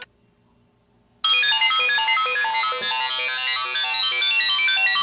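iPhone alarm tone going off: a fast, repeating melody of short, bright electronic notes that starts abruptly about a second in, after a moment of near silence.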